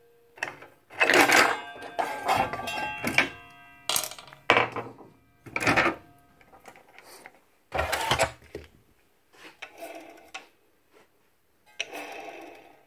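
Metal parts and tools clinking and knocking against each other and the bench, several strikes leaving a short metallic ring, as a miter saw motor is taken apart for a bearing change.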